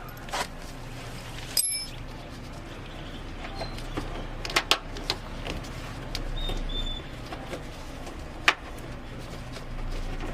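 Scattered sharp clicks and taps of small metal hardware being handled while a bolt is fitted through a quick-release bumper fastener, the loudest near the end, over a low steady hum. A few faint short bird chirps.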